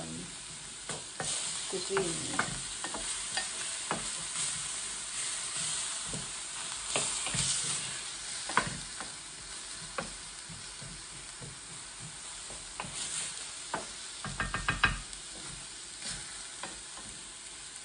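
Diced onion frying in a stainless steel pan, with a steady sizzle, while a wooden spatula stirs it with scattered scrapes and taps against the pan. There is a quick flurry of taps about fifteen seconds in. The onion is being sautéed until soft.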